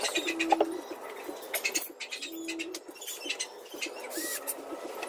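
Plywood cabinet panels being handled and fitted, with light knocks and scrapes, and three short low hums about two seconds apart.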